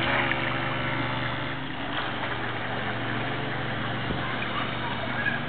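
Electric boat running on the water: a steady low motor hum under an even wash of water and wind noise.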